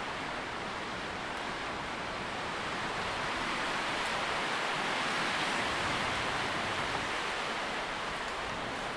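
Wind blowing through tree leaves: a steady, soft rustle that swells gently around the middle and eases again.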